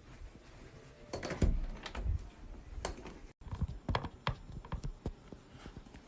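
Quiet, irregular clicks and knocks, a cluster of them between about one and five seconds in, cut off by a brief silent gap at about three and a half seconds.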